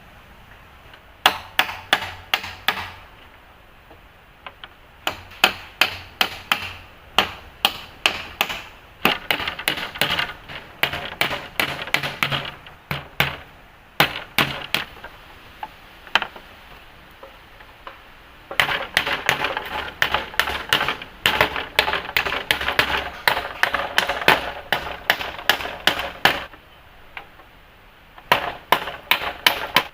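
A tool striking wood over and over, several hits a second, in runs broken by short pauses; the longest, densest run comes in the second half.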